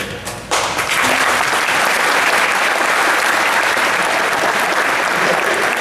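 Audience applauding: the clapping starts suddenly about half a second in and holds steady.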